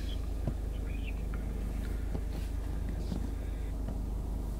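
Steady low hum of a car cabin, with a few faint clicks, during a pause in a phone call.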